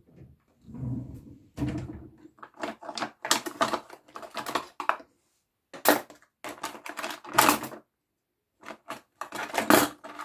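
Cutlery and kitchen utensils clattering as a drawer is rummaged through: a quick, irregular run of clicks and knocks, with a couple of duller thumps about a second in.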